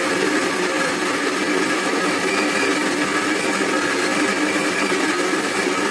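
Countertop blender motor running steadily at a constant pitch, churning frozen banana chunks and coconut milk into a thick ice-cream base.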